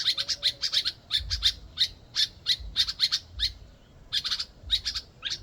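Two small birds calling over and over in quick runs of short, sharp, high notes, several a second, with a brief pause about four seconds in.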